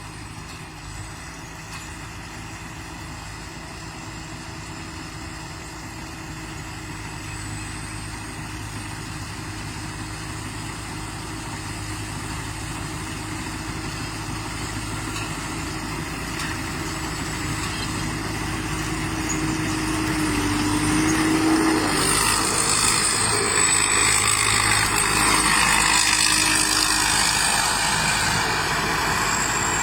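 Combine harvester running steadily with a low, even engine hum that grows gradually louder; about three quarters of the way through, a loud rushing, whirring noise joins it and stays.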